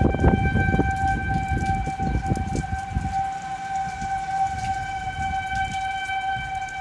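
Outdoor tornado warning siren sounding one steady, unwavering tone. Gusty wind rumbles on the microphone under it, heaviest at the start and easing off.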